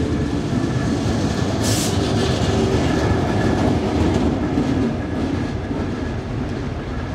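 Train moving along a station platform: a diesel locomotive hauling a passenger carriage, running steadily. A short hiss about two seconds in.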